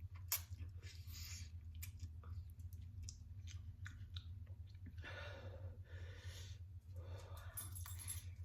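Close-up chewing and mouth sounds of someone eating spicy instant noodles: many small wet clicks, with two longer noisy mouth sounds about five and seven and a half seconds in, over a low steady hum.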